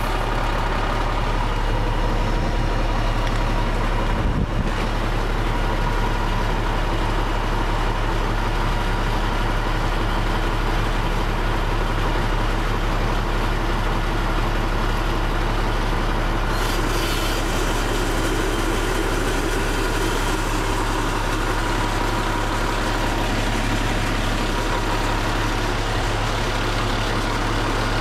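Fire engine's diesel engine running steadily with its fire pump engaged, a constant low hum.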